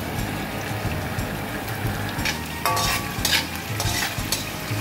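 Teriyaki sauce sizzling in hot oil with chopped garlic and onion in a stainless-steel wok. From about two seconds in, a spatula scrapes and stirs against the pan in several quick strokes, one with a brief metallic ring.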